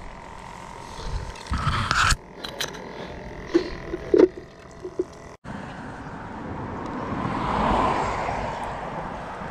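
Rustling and a few sharp knocks as fishing gear is handled at the water's edge, then a passing vehicle that swells and fades over a few seconds.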